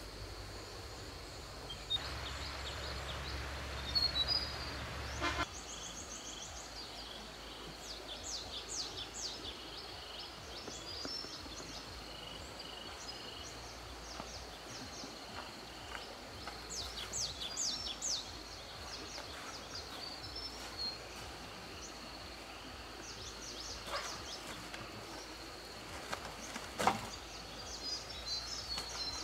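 Outdoor rural ambience: birds chirping in short calls over a steady high-pitched insect drone, with a low rumble for a few seconds near the start.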